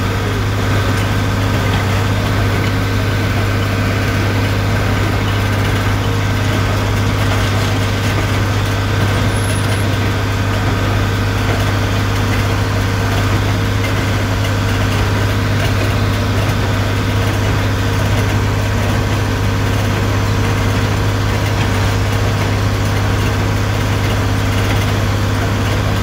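Tractor engine running steadily while pulling a John Deere 327 small square baler through the hay, heard from inside the cab as an even, loud drone with the baler's machinery running underneath.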